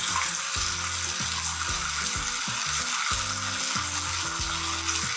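Oiled peach halves sizzling on a hot griddle pan as they char, a steady frying hiss. Background music plays underneath.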